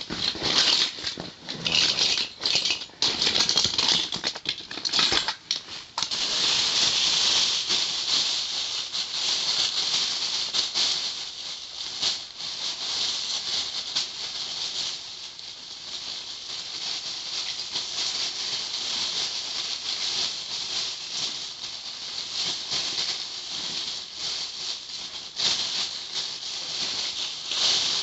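Someone rummaging through plastic bags and a bin of toys: a loud rustling and rattling, in short broken bursts for the first few seconds and then continuous.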